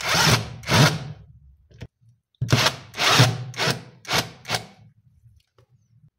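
Procraft cordless drill-driver running in short bursts as it drives in the screws of a winch's metal top cover. There are two bursts, a pause of about a second and a half, then five more in quick succession.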